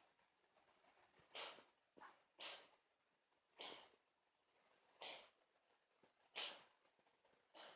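Domestic cat sneezing repeatedly, six short, soft sneezes about a second apart; the owner hopes it is not cat flu.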